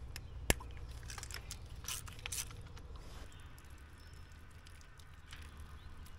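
Small clicks and taps of a lawn tractor carburetor being taken apart by hand to remove its float bowl, with one sharp click about half a second in and a few fainter ones around two seconds in, over a low steady hum.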